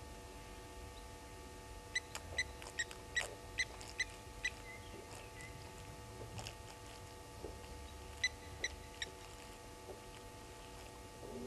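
Blacksmith lapwing giving its sharp, metallic 'tink' calls: a run of about seven evenly spaced notes a couple of seconds in, and three more near the end, over a faint steady hum.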